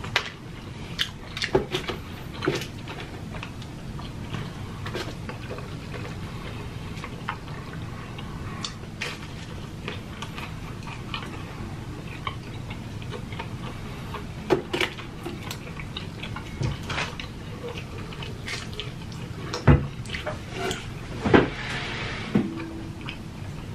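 Mouth sounds of pizza being eaten close to the microphone: scattered chewing clicks and smacks over a steady low hum, with a few louder clicks near the end.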